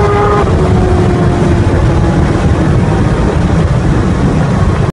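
Supercharged Kawasaki Ninja H2 inline-four passing at speed, heard from inside a following car. Its steady high tone drops in pitch about half a second in and keeps sliding lower as it fades under heavy road and wind rumble, then the sound cuts off suddenly.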